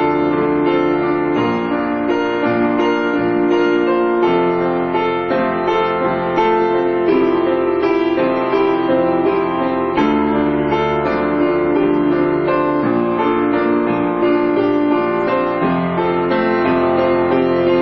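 Background music with piano: held chords that change every second or so, at a steady level.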